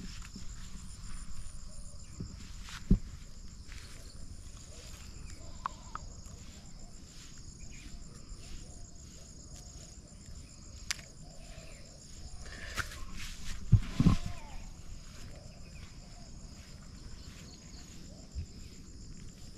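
Steady insect chorus, a high, finely pulsing trill. A few dull thumps stand out over it: one about three seconds in and two close together a little past the middle.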